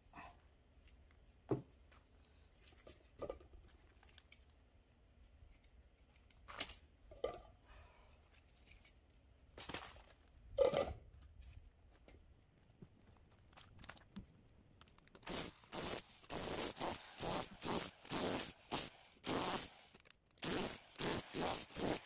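Scattered scraping, rustling and clinking of aluminum radiator fins and scrap being handled. About two-thirds of the way in, an electric hammer drill with a flat chisel bit starts up and runs in repeated short bursts, about half a second each, chiselling into an air-conditioner radiator.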